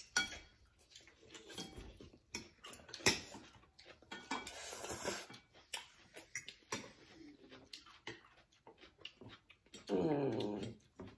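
Noodle-eating sounds: chopsticks and spoons clicking on bowls, with slurping and chewing. A longer slurp comes about four seconds in, and near the end a short pitched sound from a person falls in pitch.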